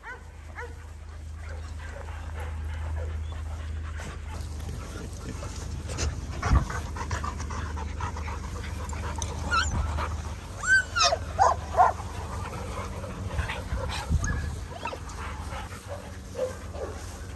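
Several dogs playing on grass: panting and scuffling, with a few thumps and a run of short, high-pitched yips about ten to twelve seconds in.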